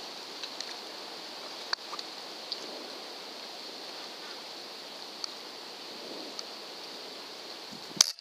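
Steady background hiss with a few faint clicks, then near the end a single sharp crack as a .25 caliber Benjamin air rifle fires at a squirrel.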